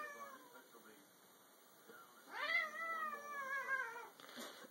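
Domestic cat meowing: a long, drawn-out meow starting about two seconds in and falling in pitch over about a second and a half, after the tail of a similar falling call at the very start.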